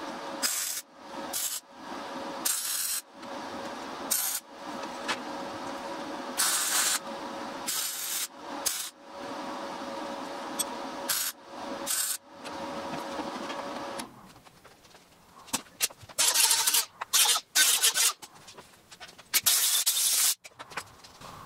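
Electric welding arc on a steel motorcycle frame, finish-welding the tank-mount bungs: a steady buzzing hum laid down in a string of short runs, with brief breaks and loud sizzling bursts between them. After the welding stops, short loud noisy strokes follow near the end.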